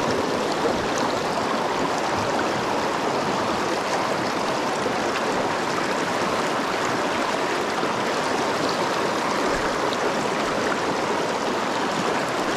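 Shallow mountain stream rushing over rocks and boulders: a steady wash of moving water.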